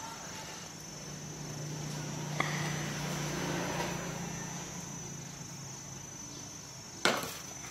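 Steady high-pitched chirring of insects, with a spoon clinking in a ceramic plate of tamarind; one sharp clink about seven seconds in is the loudest sound. A low hum swells and fades in the middle.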